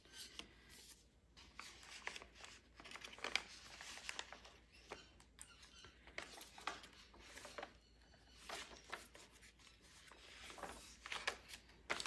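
Faint rustling and flicking of heavy matt photographic paper pages as a small handmade notebook is leafed through and the journal's pages are turned, in soft scattered strokes.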